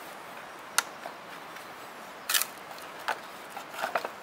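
A few sharp clicks over a steady low hiss: one about a second in, a double one after about two and a half seconds, and fainter ones near the end.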